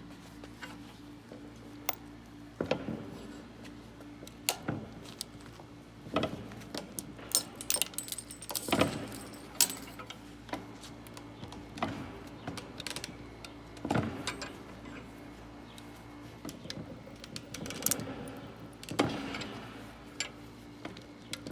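Fake Rolex wristwatch being crushed in a vise: irregular sharp cracks, snaps and small metallic clinks as the case gives way, a plastic piece pops off and small parts fall out. The loudest cracks come near the middle and again near the end, over a steady low hum.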